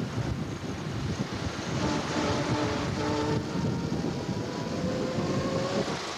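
Engine of an old open military-style jeep running as it drives along the street, with road and wind noise and a few steady tones that step up and down in pitch.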